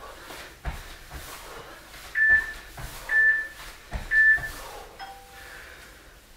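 Three short high beeps about a second apart from a workout interval timer, marking the end of the work period. They are mixed with a few dull thuds of feet landing on a floor mat from jump squats. A fainter, lower tone sounds about five seconds in.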